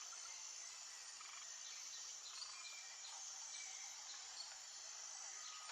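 Faint outdoor nature ambience: a steady high insect drone with scattered short bird chirps.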